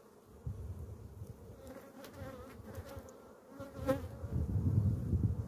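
Honeybees buzzing over an open hive full of frames. A single sharp click comes about four seconds in, and a low rumble builds near the end.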